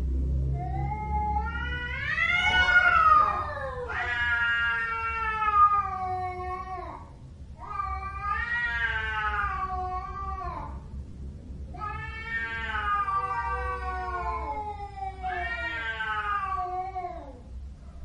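Domestic cat howling: five long, drawn-out yowls, each two to three seconds, wavering and sliding in pitch.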